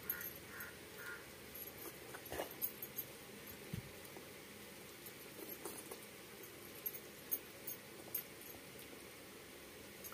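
Eating by hand from a banana leaf: fingers squeezing and mixing rice, with chewing and lip smacks heard as scattered soft clicks.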